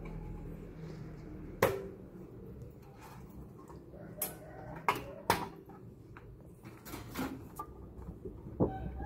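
Copper plates being stripped from electrowinning cathodes: several sharp metal knocks and clanks at irregular intervals over a steady low hum.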